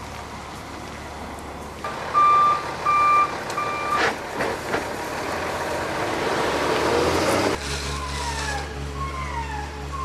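Backup alarm on a heavy vehicle beeping three times over a steady low diesel engine run, followed by a rising rush of machine noise that cuts off suddenly. After the cut, a stronger engine hum runs with a short falling chirp repeating about every 0.7 s.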